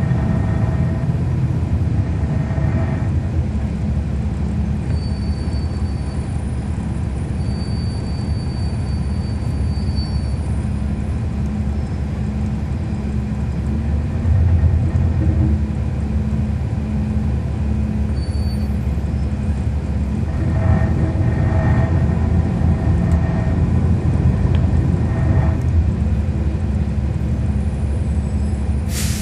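Cummins ISL9 diesel engine of a 2011 NABI 416.15 transit bus running steadily as the bus rides, heard from on board. The rumble swells about halfway through, and there is a brief sharp hiss near the end.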